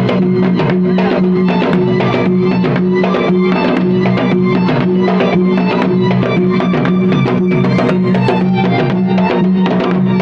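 Traditional pencak silat accompaniment music: fast, dense drumming over a steady held note.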